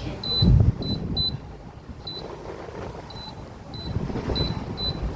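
Short electronic beeps from a fan's push-button control panel, about eight of them at uneven intervals, as its buttons are pressed. About half a second in there is a heavy low thump, with low handling noise around the beeps.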